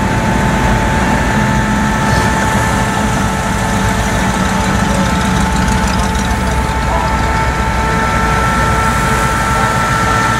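Classic car engines running at low speed as cars roll slowly past one after another: an Advance Design Chevrolet pickup, then a Pontiac GTO, a steady low rumble. A thin steady whine sounds alongside.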